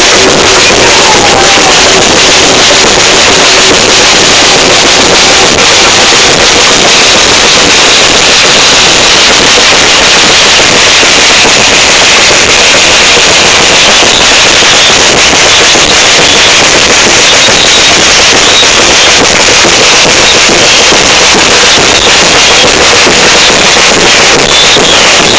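Samba bateria, a carnival drum section, playing close up. It is so loud that the recording is clipped into a dense, distorted wall of drumming.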